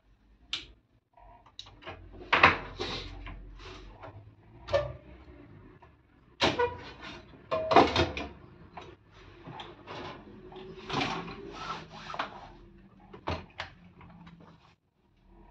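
Sheet-metal power-supply unit of a Mitsubishi D70 printer being pulled off the printer and handled. Irregular clicks, scrapes and metal knocks come as the panel and its cables are moved and set down on a bench, the loudest knocks about two and a half, six and a half and eight seconds in.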